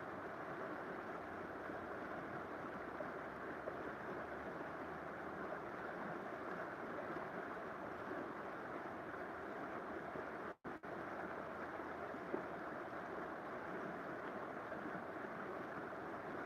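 River water flowing: a steady rushing murmur, broken by a split-second dropout to silence about ten seconds in.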